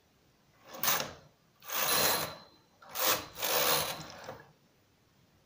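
Domestic knitting machine carriage pushed across the metal needle bed and back, knitting two rows: a loud mechanical rattle on each pass, about a second and a half each, the two passes coming a little under a second apart.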